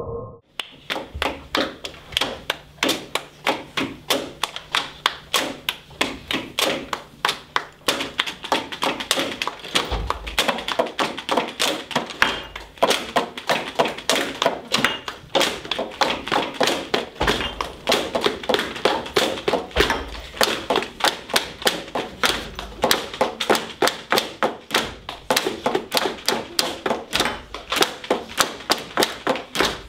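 Schoolchildren knocking and tapping metal cans, tins and pencil cases on their school desks in a steady percussive rhythm, roughly three or four knocks a second. It starts about half a second in.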